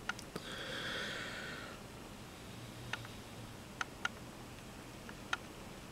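Quiet room with a soft breath exhaled about half a second in, lasting just over a second, followed by a few faint scattered clicks.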